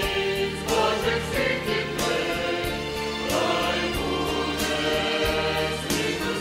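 Mixed church choir of men's and women's voices singing a hymn in parts, over a steady low instrumental accompaniment.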